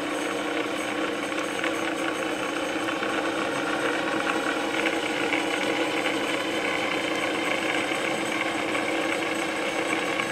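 Clausing 12" x 36" engine lathe (model 5914) running steadily under power, its chuck spinning, while its variable-speed control is turned back up.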